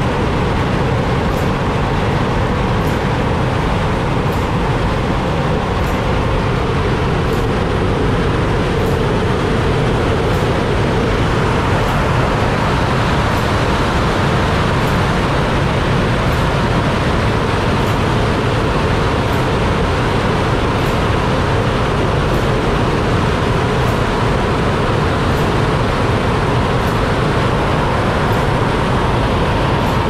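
Loud, steady roar of water rushing out of a dam's opened outlet channel.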